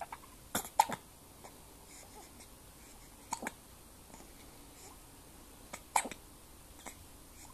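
Hiccups: three short, sharp ones about two and a half seconds apart, each with a fainter catch right beside it.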